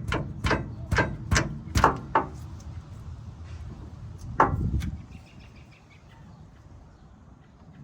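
Sharp knocks of parts or tools being struck, about six in quick succession, then one more a couple of seconds later, while a sway bar link is being fitted.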